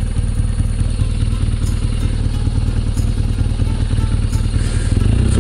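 Motorcycle engine idling, a steady low pulsing run that gets slightly louder near the end.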